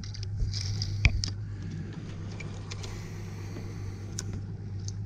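Boat engine idling with a steady low hum, and a few light clicks over it, the sharpest about a second in.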